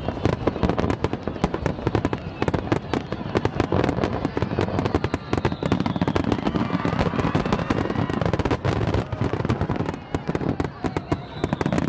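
Aerial fireworks going off in a dense, rapid barrage of overlapping bangs and crackles, with falling whistles about halfway through and again near the end.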